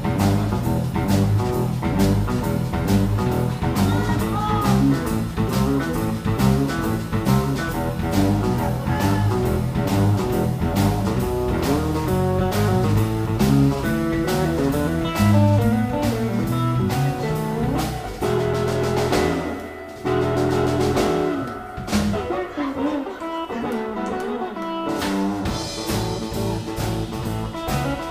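Live blues band playing, with guitar and drums. About two-thirds of the way through, the low end and drums drop out for a few seconds, then the full band comes back in.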